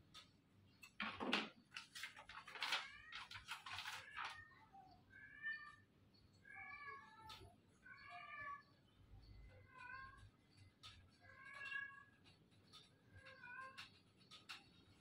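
Paper and plastic rustling in the first few seconds, then a cat meowing faintly in a run of short calls, about one every second or so.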